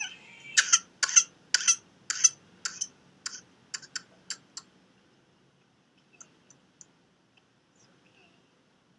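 A run of sharp clicks, in loose pairs about every half second, growing fainter and closer together until they die out about halfway through, followed by a few faint ticks.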